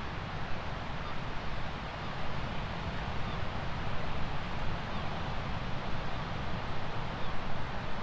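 Surf on a sandy beach: a steady rush of waves breaking and washing in, with a low, fluttering rumble underneath.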